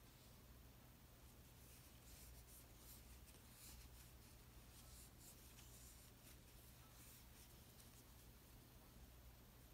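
Near silence: faint, irregular scratchy rustling of a crochet hook working cotton yarn, stitch after stitch, over a low steady hum.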